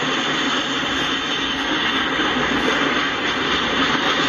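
Freight train's covered hopper cars rolling past, a steady, even noise of steel wheels running on the rails.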